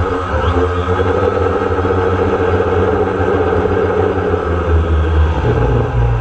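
DJI Phantom quadcopter's electric motors and propellers running in flight as a steady multi-tone whine, its pitch shifting a little as the drone manoeuvres, with a fluctuating low rumble of wind on the onboard microphone.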